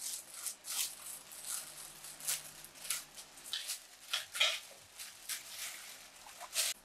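Thin clear plastic bag crinkling and rustling in the hands as a small appliance part is unwrapped from it, in irregular crackles, a few sharper than the rest.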